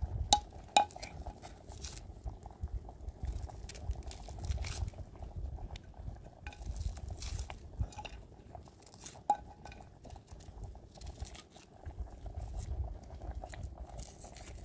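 Metal utensils and dishes clinking and knocking during food preparation, with a few sharper knocks near the start and about nine seconds in.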